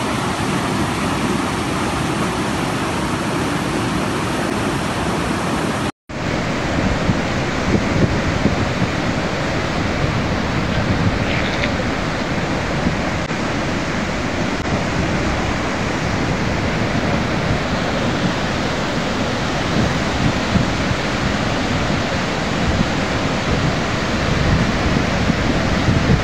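Fast, swollen flash-flood river: a steady, dense rush of muddy torrent water, broken once by a short drop-out about six seconds in.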